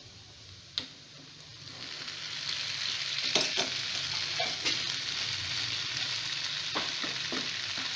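Boiled macaroni tipped into a hot pan of sausage and onion fried in margarine. A sizzle builds up about two seconds in and then holds steady, with a wooden spatula knocking against the pan now and then as it stirs.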